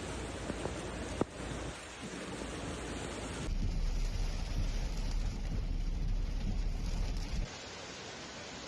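Heavy rain and storm noise, a steady hiss that changes abruptly about a second in and again around three and a half seconds. A deep rumble runs under it until it drops away about seven and a half seconds in.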